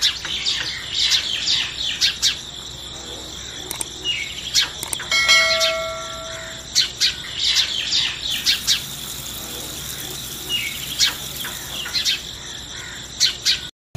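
Birds chirping in quick, repeated short calls, with one steady held note for about a second and a half near the middle.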